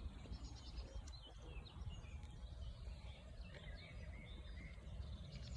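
Small birds chirping and twittering in short rising and falling notes, with quick ticking trills near the start and end, over a faint low steady rumble.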